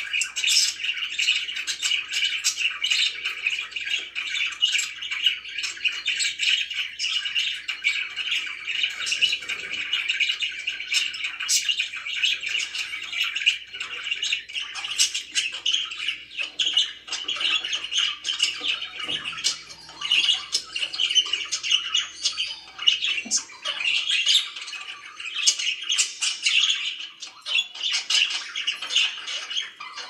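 Caged budgerigars chattering and chirping without a break, a dense mix of continuous chatter and many short, sharp chirps.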